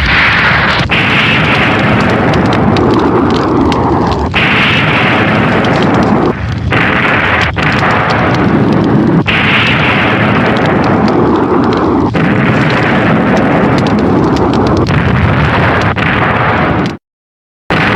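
A run of Showa-era tokusatsu explosion sound effects, one after another every one to three seconds. Each breaks in suddenly as a loud hissing blast that fades, and a brief dead silence near the end comes just before the next blast.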